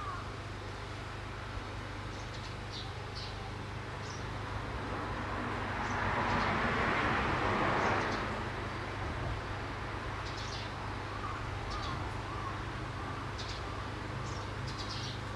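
Small wild birds chirping in short, high notes scattered throughout, with a passing vehicle's noise swelling and fading away about five to eight seconds in over a steady low hum.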